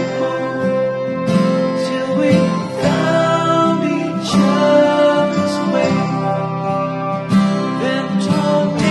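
Background music led by a strummed guitar, with a new chord struck about every second and a half.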